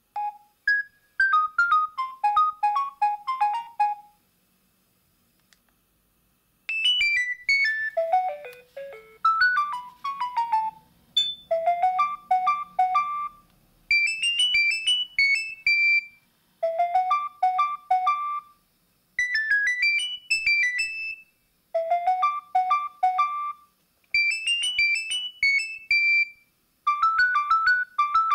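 Nokia 7250i ringtones played on the phone's loudspeaker. First a short melody of falling notes, then after a two-second pause a different tune of quick repeated note phrases that loops every couple of seconds.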